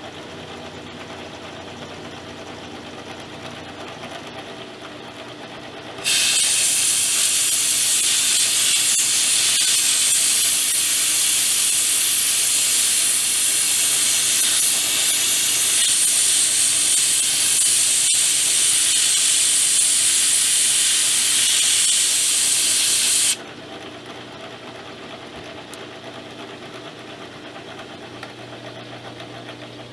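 Milling machine running as it cuts a plate. A loud, steady hiss starts abruptly about six seconds in, runs for roughly seventeen seconds and cuts off just as suddenly.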